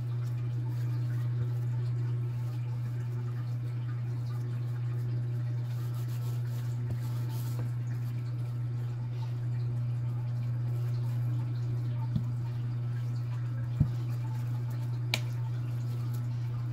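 Steady low hum, with a few light knocks in the last few seconds.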